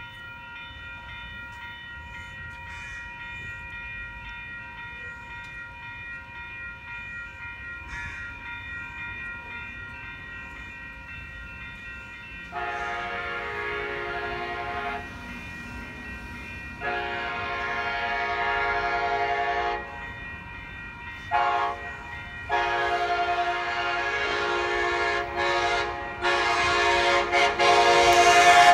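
Amtrak Pacific Surfliner train horn sounding the grade-crossing signal: two long blasts, a short one, then a long one held as the train approaches and grows louder. Before the blasts, a fainter steady tone.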